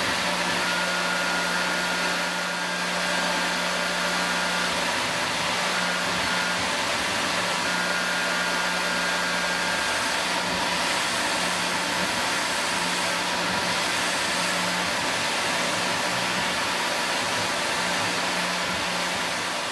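Tormach PCNC 770 CNC mill running steadily, with a constant hiss from its mist coolant nozzle and a faint hum from the spindle, as a 3/8 inch ball end mill makes a parallel finishing pass across an aluminum engine head.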